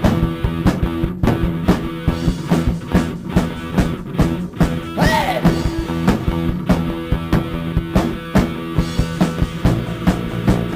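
Instrumental rock band playing: a drum kit keeping a busy, even beat under sustained guitar and bass notes, with a swooping pitched sound about five seconds in.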